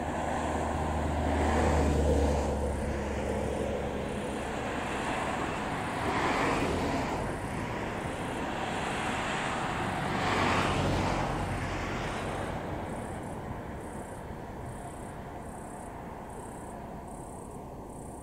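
Vehicles passing in turn: three swells of rumble and road noise a few seconds apart, the first with the deepest rumble, then fading away. Faint high chirps about once a second come in over the last few seconds.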